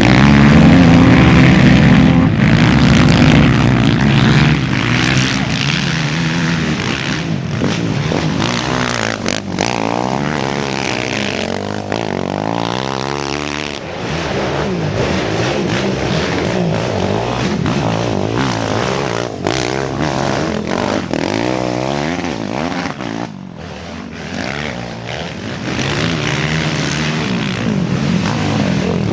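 Racing sport quad engines revving up and down as ATVs pass one after another, their pitch rising and falling with each gear and throttle change. The loudest pass comes in the first few seconds.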